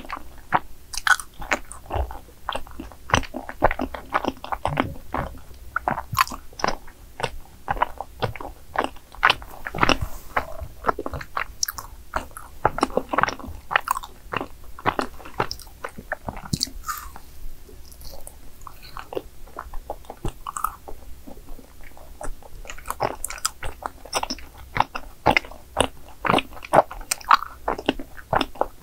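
Close-miked chewing of a chewy, cream-filled rice cake (cream tteok): a dense, irregular run of small mouth clicks and smacks, thinning out for a few seconds past the middle.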